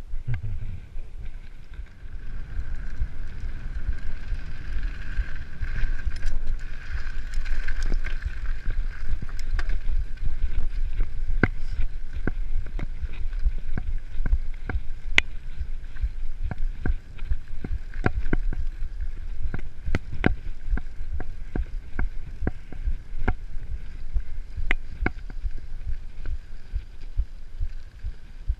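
A mountain bike ridden over a rough gravel and dirt track, picked up through a handlebar-mounted camera: a constant low rumble of vibration with frequent sharp rattles and knocks as the bike goes over bumps.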